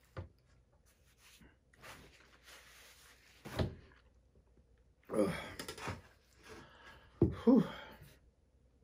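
Someone eating from a large stainless-steel bowl of pasta: a short knock at the start and a dull thump a few seconds in. The loudest sounds are short vocal noises from the eater near the middle and again near the end.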